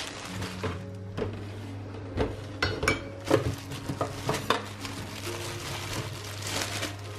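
Kitchen handling noise: a plastic bag rustling and crinkling around a savoy cabbage, with sharp clicks and knocks of a knife on a stainless steel draining board, over a steady low hum. The clicks come thickest in the middle of the stretch.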